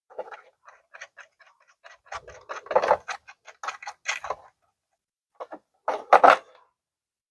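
Rapid light clicks and small metallic clinks as the retaining nut of a winch-cover toggle switch is worked loose by hand, followed about six seconds in by a few louder knocks of the hard plastic winch cover being handled.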